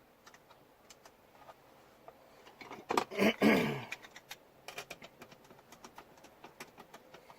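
Light plastic clicks and taps from the steering-column trim cover and its screws being handled and fitted, with a louder scraping noise lasting under a second about three seconds in.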